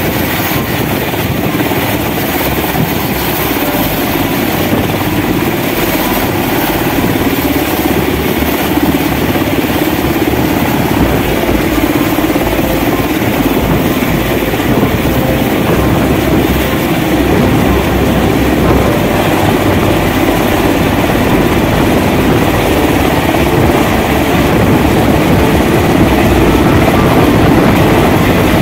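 Sikorsky UH-60L Black Hawk helicopter hovering at close range: loud, steady noise from its four-blade rotor and twin T700 turboshaft engines. The noise grows gradually louder, and a deeper rumble fills in about a third of the way through.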